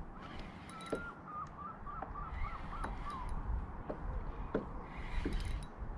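Spinning reel being wound against a hooked fish on a kayak, with scattered light clicks and knocks over wind and water noise. In the first half a wavering bird call rises and falls for a couple of seconds.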